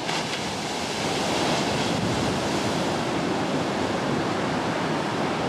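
Ocean surf breaking on a sandy beach: a steady rush of white water, swelling a little about a second or two in.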